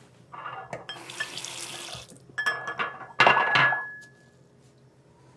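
Tap water running into a bathroom sink for about a couple of seconds. This is followed by a few light clicks and then a loud clink of a small ceramic bowl against the sink, which rings out for about a second.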